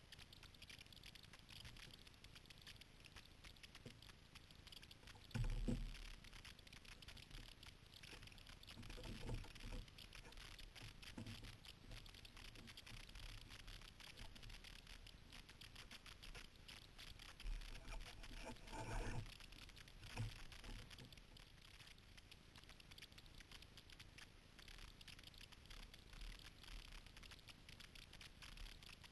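Faint water lapping and pattering against a small boat's hull as it is paddled, with a few dull knocks, the loudest about five seconds in.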